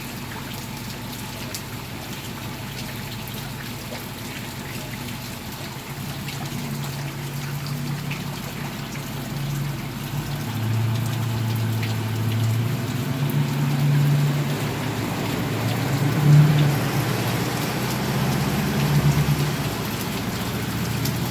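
Heavy hurricane rain falling and splashing on surfaces and standing floodwater, with a low rumble that builds from about six seconds in and grows louder toward the end.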